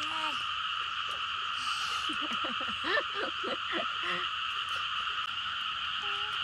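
Steady evening chorus of frogs calling, a constant unbroken din, with a few short pitched calls standing out about two to four seconds in.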